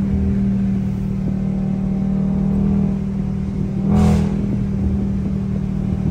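Dodge Charger R/T's 5.7-litre HEMI V8 running hard at a steady pitch as the car is driven. A short, louder burst comes about four seconds in.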